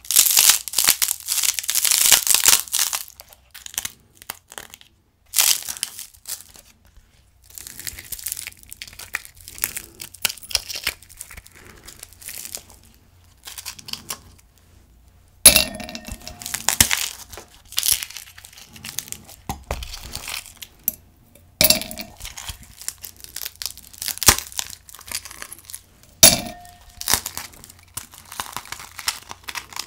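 Ice cubes being twisted and pushed out of an ice cube tray, with loud crackling as the tray is flexed in the first few seconds, then scattered clicks and scrapes. Three times a cube drops into an empty glass with a ringing clink.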